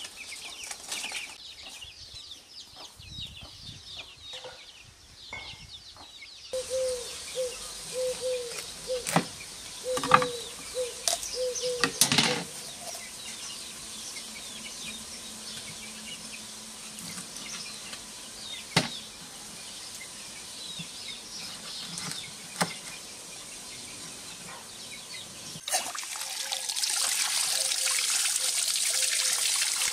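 Chickens clucking and flapping at first. Then sharp knocks of a raw chicken being cut on a wooden cutting board, with a short call repeating in the background. About 26 s in, steady running water starts as raw chicken pieces are rinsed in a stainless steel colander.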